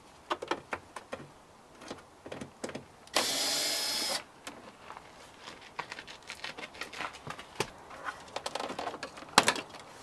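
A cordless drill-driver runs steadily for about a second, about three seconds in, backing out a Torx screw from the bottom of a car door trim panel. Scattered short clicks and knocks of tools and screws being handled come before and after it.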